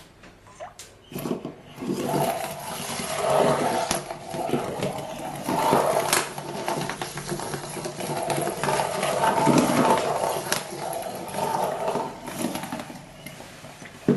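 Sphero Mini robot ball driving about, its small geared motors whirring at varying speed as it rolls across a surface, with a few knocks.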